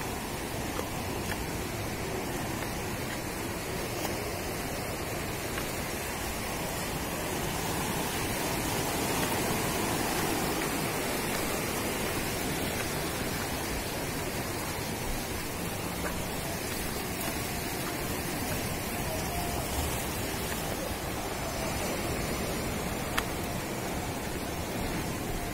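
Steady rushing noise of sea waves and wind, with a single short tap about 23 seconds in.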